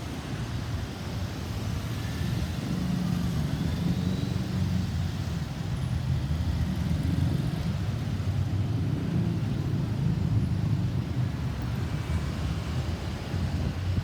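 Motor vehicle traffic: a steady low engine rumble with road noise, growing a little louder after the first couple of seconds.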